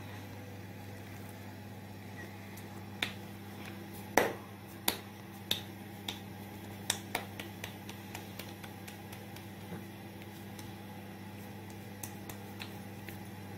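A run of sharp slaps or snaps from the cook's hands, about a dozen, starting a few seconds in, loudest at first and fading off, with a few more near the end. A steady low hum runs underneath.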